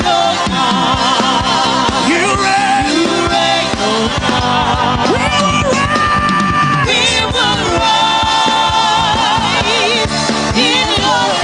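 Gospel worship music: a voice singing long, wavering held notes over instrumental backing with a steady beat.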